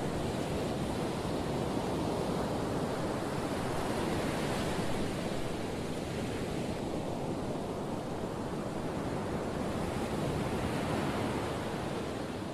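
Steady rushing noise like ocean surf, swelling and easing gently.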